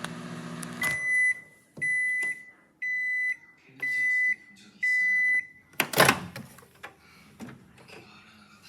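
Microwave oven hum cutting out about a second in, followed by five evenly spaced end-of-cycle beeps, then a loud clunk about six seconds in.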